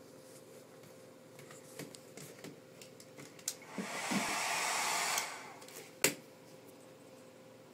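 Handheld hair dryer switched on and blowing for about a second and a half, then cut off. About a second later comes a single sharp knock, the loudest sound here.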